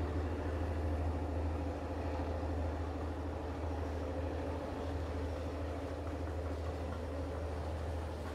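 Diesel locomotive engine running with a steady low drone as the train moves away, slowly fading.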